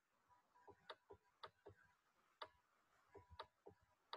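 Faint, irregularly spaced clicking and tapping, about a dozen short ticks, from a pen or stylus handwriting notes onto a digital screen.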